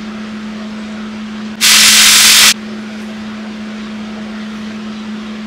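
MIG welder laying a short tack weld on steel tubing: about one second of loud, even arc hiss, over a steady low hum.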